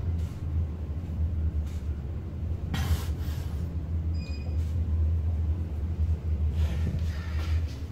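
Schindler electric traction elevator car travelling, a steady low rumble of the ride in the cab, with a knock about three seconds in and a short high electronic beep about a second later.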